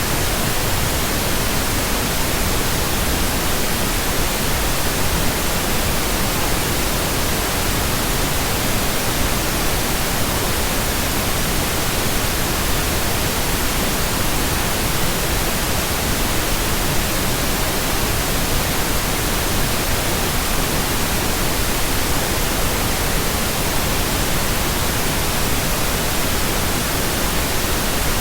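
Steady synthesized pink noise: an even, unbroken hiss spread across all pitches, with no tones, pulses or changes.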